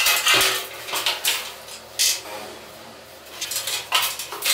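Stiff brush dragged across wet plaster in short, irregular rasping strokes, combing a wood-grain texture into the wall surface, with a few light knocks in between.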